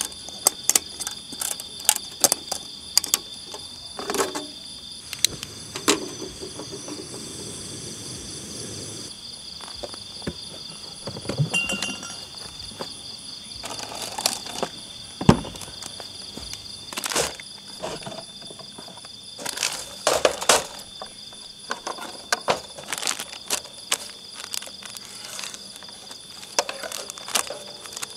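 Crickets and other night insects trilling steadily, under scattered sharp clicks, knocks and light clatter of camp gear being handled, including a metal lid set on a stainless steel pot.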